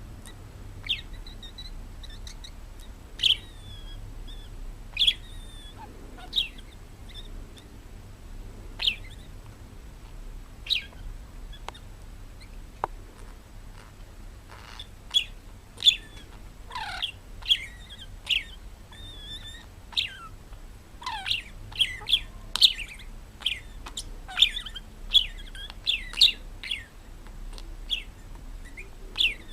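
A bird chirping in short, sharp calls, spaced out at first and coming thick and fast from about halfway on, with a few steeply falling whistles among them.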